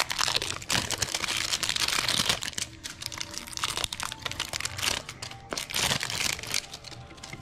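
Packaging of a new brushless drone motor crinkling and rustling as it is opened by hand. The crackle is busiest in the first couple of seconds, then thins to scattered rustles and clicks.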